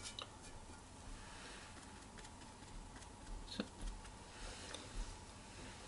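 A few faint, scattered light taps and clicks from a paintbrush being worked on a watercolour palette and then on the paper, with one slightly sharper click a little past halfway.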